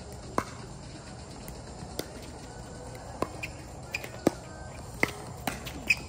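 Pickleball paddles striking a plastic pickleball during a rally: about seven sharp pops, roughly a second apart at first and coming faster near the end as the players volley at the net.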